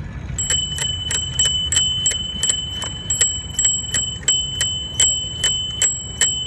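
A bicycle bell rung over and over, starting about half a second in, about three rings a second, its high ringing tone carrying on between strikes.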